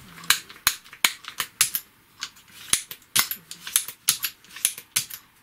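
Hand desoldering pump (solder sucker) worked over and over, its spring plunger pushed down and let go: a run of sharp clicks and snaps, about three a second. It is being cleared of old solder residue.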